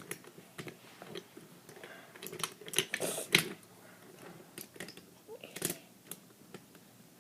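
Wooden toy train pieces being handled and moved, giving scattered light clicks and knocks at an irregular pace.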